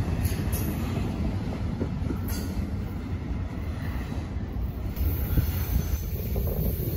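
Double-stack intermodal freight cars rolling along the rails: a steady low rumble with a few sharp wheel clicks in the first couple of seconds.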